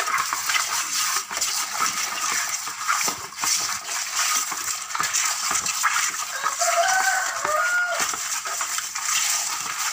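Hands rubbing and turning raw fish pieces with salt and turmeric in a metal bowl: wet scrubbing and scraping, the pieces clicking and knocking against the bowl, as the slime is scoured off the fish.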